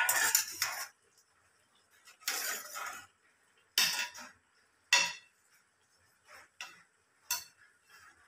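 A slotted steel spatula stirring thick curry in a large metal kadai, scraping and knocking against the pot in about five separate bursts of clatter. The loudest burst comes right at the start.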